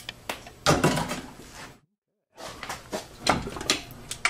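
Steel clutch drums of a 6R80 automatic transmission clinking and knocking as they are handled and lifted on a workbench: a series of sharp metallic clicks and knocks, broken by a short gap of total silence just before the middle.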